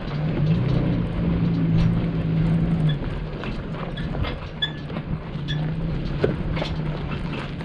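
A 4x4 truck driving slowly off-road: its engine hums steadily, louder for the first three seconds, under scattered knocks and rattles from the vehicle jolting over rough ground.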